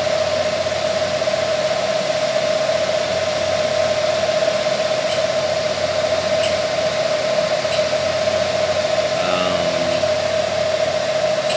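Steady fan noise with a constant hum from the cooling fan of a switched-on Everlast 210EXT TIG welder, with a few faint clicks near the middle as its front-panel button is pressed.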